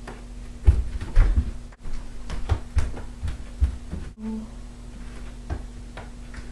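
Knocks and thumps of a Bop It toy being thrown, caught and handled, the loudest about a second in, over a steady low hum. A brief low beep sounds just past four seconds in.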